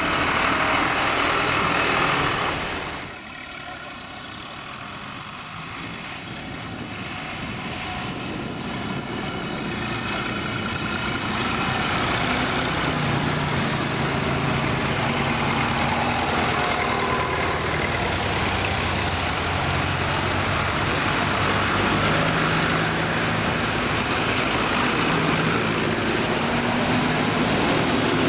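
Tractor diesel engines passing one after another on a road, an older John Deere going by close at first. About three seconds in the engine sound drops away sharply, then builds steadily as the next tractors approach and pull past, staying loud with a steady engine hum.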